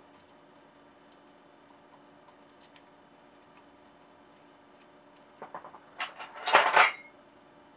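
A short burst of metallic clicks and clatter from steel tools and a bicycle rear derailleur being handled and worked loose, starting about five and a half seconds in, lasting about a second and a half and loudest near its end. Before it, only a faint steady room hum.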